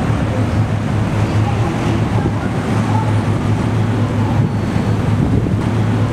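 Steady rumble of road traffic, with a constant low hum under it.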